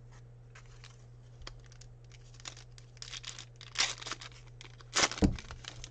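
A Fleer Ultra basketball card pack's foil wrapper is torn open and crinkled by hand. Scattered crackles build into louder rips around the middle, and the loudest rip comes about five seconds in.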